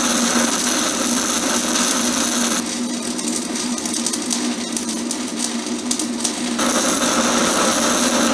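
Stick (MMA) welding arc on a 7018 low-hydrogen covered electrode burning steadily: a continuous crackling hiss over a buzzing hum. For a few seconds in the middle it turns sharper and more crackly.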